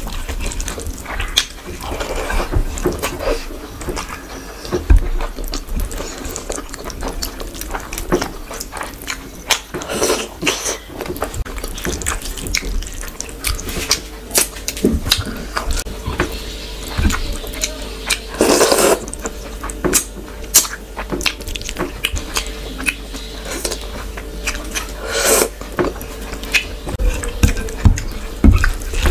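Close-miked eating sounds of rice and curry eaten by hand: wet chewing and lip smacks, with squelching as fingers mix rice into curry. There is a steady run of short smacks and clicks, with one louder, longer wet smack about two-thirds of the way through.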